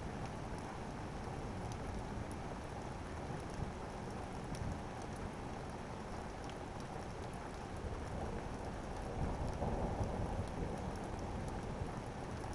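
Steady rain falling during a thunderstorm, with scattered drops ticking and a low thunder rumble that swells slightly about nine seconds in.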